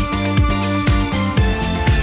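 Electronic background music with a steady beat, about two kick-drum hits a second.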